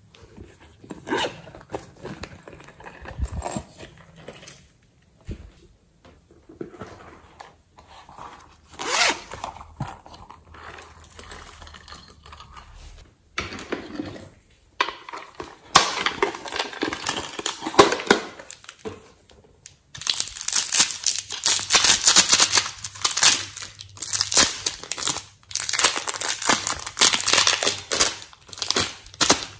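Hands handling and opening hard plastic toy cases, with scattered clicks and knocks. Near the end this gives way to dense, almost continuous crinkling and crackling as clay is pulled out of its clear plastic wrapping.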